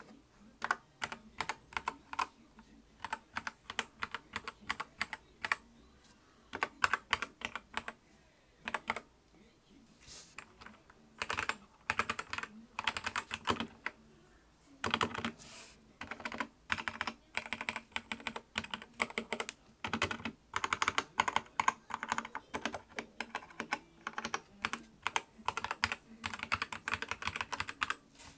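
Typing on a Zi You Lang K68 mechanical keyboard with red linear switches: rapid key clacks in bursts, with short pauses between runs.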